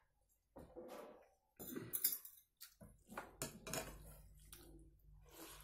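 Eating sounds at close range: gulps of water from a steel tumbler, then the tumbler set down with a sharp metallic clink about two seconds in. A run of soft chewing and rice-mixing noises follows.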